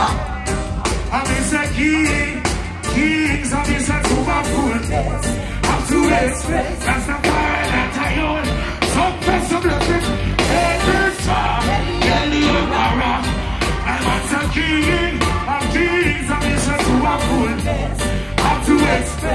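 Live reggae band (drum kit, electric guitar and keyboards) playing a steady beat with a heavy low end, while a male lead vocalist sings into a microphone over it.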